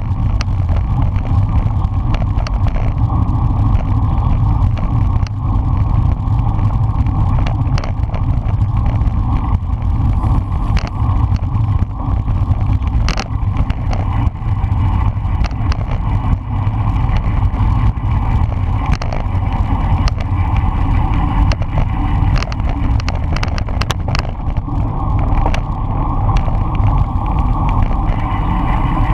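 Heavy wind rush buffeting the microphone of a camera on a road bike moving at race speed, with scattered sharp clicks and ticks.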